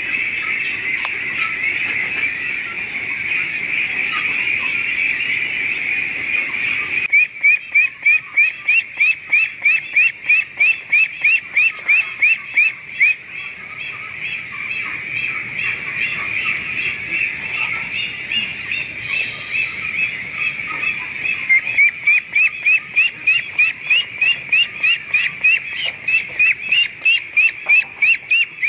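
A shed full of Pekin ducklings peeping in a dense, continuous chorus. From about seven seconds in, one duckling peeps loudly close by, about three high peeps a second, easing off for a while in the middle and then coming back loud.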